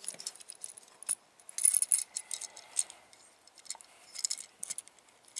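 Small plastic Transformers Optimus Prime toy being transformed by hand: its joints and parts clicking and snapping as they are folded and pushed into place. Scattered light clicks, with a busier run about two seconds in.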